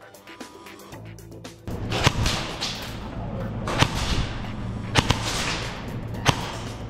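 Airsoft firefight: about six sharp cracks at irregular spacing, a second or so apart, over a loud steady rush of noise that comes in about two seconds in.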